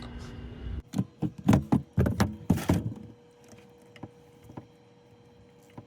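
A quick run of knocks and clunks over about two seconds, with a short hiss near the end, as a leaking fitting on an RV water filter and softener setup is handled and reworked.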